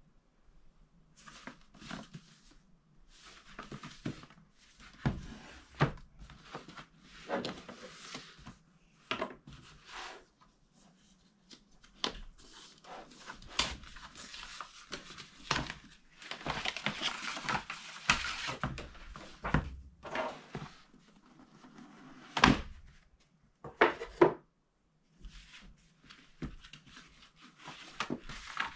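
Handling and opening a cardboard headphone box: irregular taps, scrapes and rustles of card and paper, with a longer stretch of sliding, rubbing rustle about halfway through and two sharp knocks near the end as the carrying case is lifted out of its tray.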